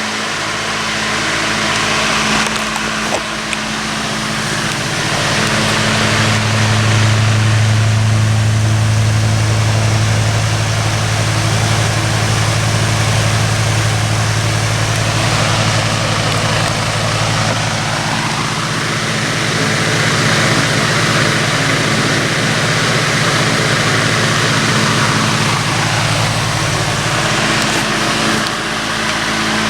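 Vintage Emerson 28646 12-inch brass-blade table fan running steadily on high speed: a steady rush of air over a low electric-motor hum. The hum swells for several seconds in the middle, then settles back.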